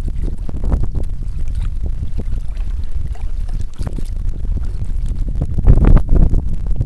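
Wind buffeting the microphone with a heavy, uneven rumble, over small waves splashing against a kayak; the wind surges loudest about six seconds in.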